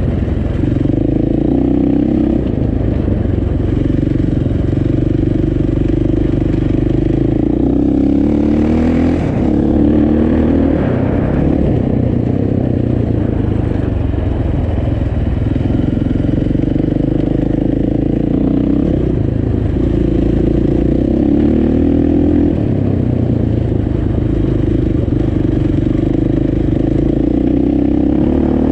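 Motorcycle engine running while riding, its pitch rising and falling with throttle and gear changes, with a brief rushing noise about eight seconds in.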